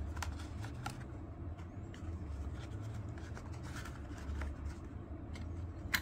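Small cardboard cartons and paper being handled and slid into a cardboard box: light rustling, with scattered soft taps and clicks over a low steady hum.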